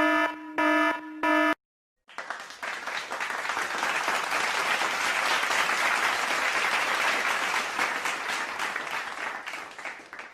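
An electric buzzer sounding in short repeated buzzes. After a brief silence, a crowd applauding, swelling in and clapping steadily for about eight seconds.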